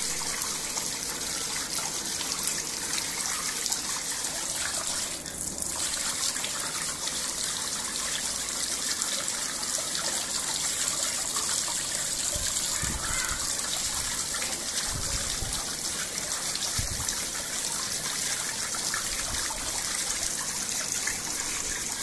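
Fountain water from a 40-watt submersible pump spraying up and splashing steadily back into a plastic tub.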